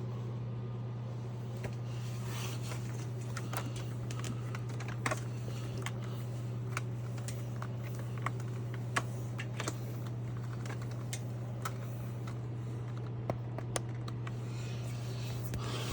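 Dyson DC33 Multi Floor upright bagless vacuum cleaner running with a steady low hum, with scattered sharp clicks and taps throughout and a louder knock at the very end.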